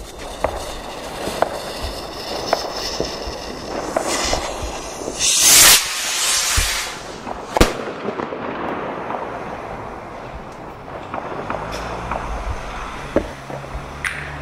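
New Year's Eve fireworks: a dense run of cracks, pops and bangs. A loud hissing rush comes about five seconds in, with a sharp bang shortly after, and then the crackling thins out.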